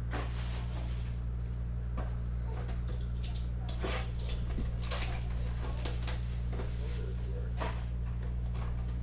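Hands handling a cardboard trading-card box: scattered scrapes and taps of cardboard on the table, several times, over a steady low hum.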